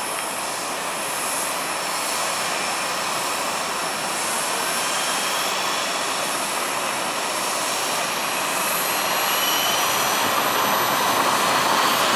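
The small gas-turbine engines of two large-scale RC Bell JetRanger helicopters spooling up on the ground. They make a steady jet hiss with thin high-pitched whines, and the sound grows a little louder over the last few seconds.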